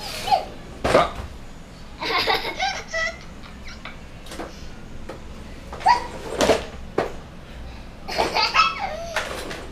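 A toddler laughing and giggling in short bursts, about three times, with a few sharp knocks in between.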